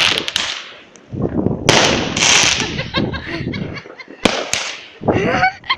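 Consumer fireworks going off: a series of sharp bangs and bursts of crackling, the longest burst running about a second starting near two seconds in.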